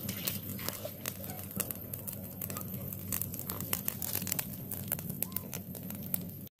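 Open wood fire crackling, with frequent sharp pops and snaps over a steady low rushing noise.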